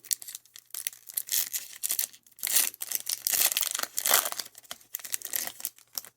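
A football card pack's wrapper being torn open and crinkled by hand: irregular crackling and rustling in uneven bursts.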